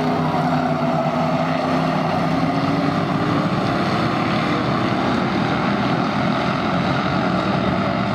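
A field of stock-car engines running together as the pack circles the oval, a steady mixed drone of several engines.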